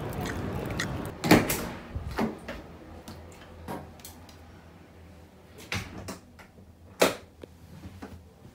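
An apartment front door shuts with a sharp thud about a second in, and the steady outside noise fades away. A few lighter knocks and clicks follow as shoes are taken off, with a second loud knock near the end.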